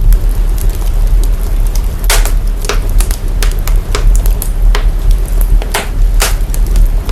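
Fire crackling with irregular sharp pops over a loud, deep sub-bass rumble, the fire's sound put through heavy signal processing to bring out the lows.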